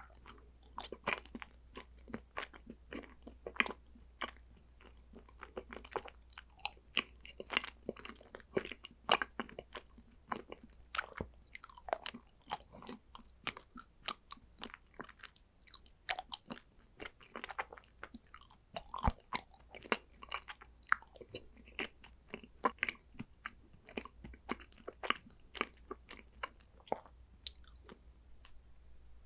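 Close-miked chewing of condensed-milk chocolate: a dense run of irregular crunches and sticky mouth clicks.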